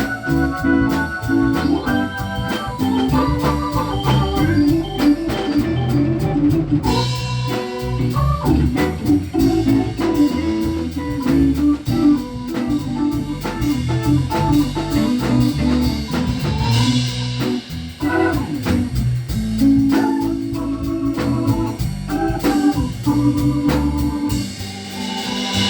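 Live band playing an instrumental break: an organ solo of quick repeated notes over a drum kit.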